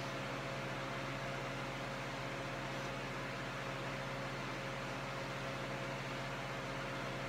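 Steady hum and hiss of a running motor-driven machine, with a low even drone and a fainter higher tone.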